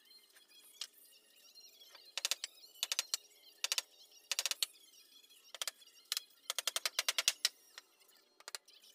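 Hammer striking meranti boards of a wooden table top, in quick runs of light taps with short pauses between, the last run the longest.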